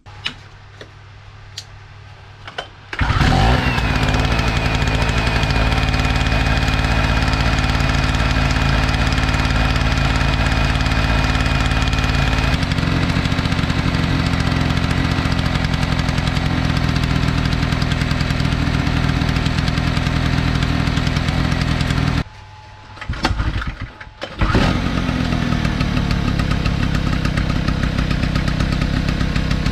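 Power Craft 720 two-stroke portable generator engine catching about three seconds in and running steadily. A thin high whine sits over it for the first several seconds. The sound drops away briefly a little after twenty seconds, then the engine is running again.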